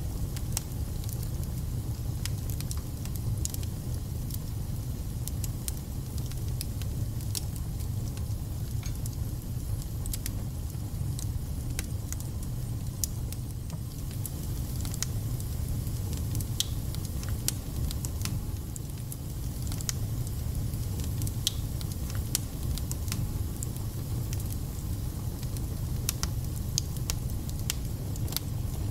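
Wood fire burning in a fireplace: a steady low rumble with frequent, irregular sharp crackles and spits from the logs.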